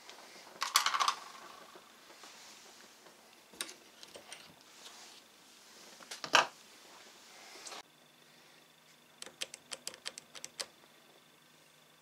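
Padlocks and a small bench vise being handled: a few sharp metallic clacks and knocks as a picked padlock is taken out and the next one clamped in, then a quick run of small clicks in the last third.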